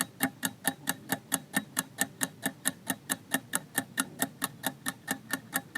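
Countdown-timer clock ticking sound effect, rapid and even at about five ticks a second, marking the time given to answer a quiz question.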